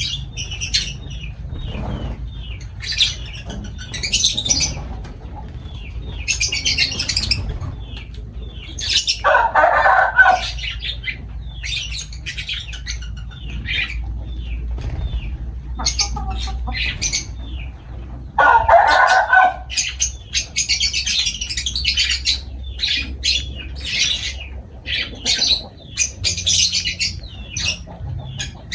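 Lovebirds chattering in rapid, shrill chirps. Twice, about ten and nineteen seconds in, a louder, lower call about a second long cuts through.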